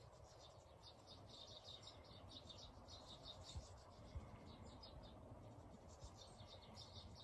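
Many small garden birds chirping faintly, short high calls coming several times a second, with a couple of soft low knocks in the middle.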